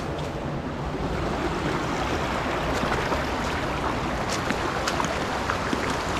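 Steady rushing of running water from a stream, with wind buffeting the microphone and a few light clicks of stones being handled.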